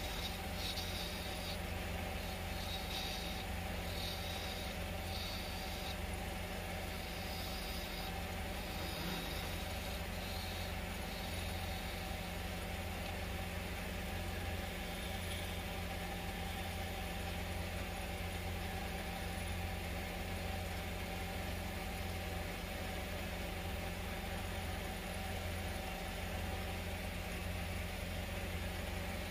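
Wood lathe running with a steady motor hum. A turning tool cuts the spinning teak in short passes during the first ten seconds or so.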